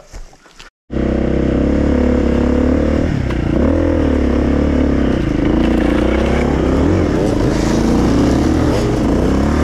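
Enduro dirt-bike engine running under throttle close to the microphone, its pitch dipping and rising as the throttle is worked; it starts abruptly about a second in.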